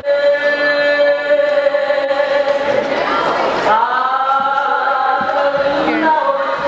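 Conch shell blown in two long, steady blasts, the second swooping up in pitch as it starts, sounded to open a Hawaiian luau.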